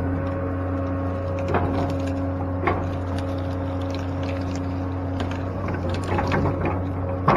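Excavator's diesel engine running steadily, holding a constant drone, with a few short knocks and clunks from the machine working, one at about a second and a half in and another near three seconds.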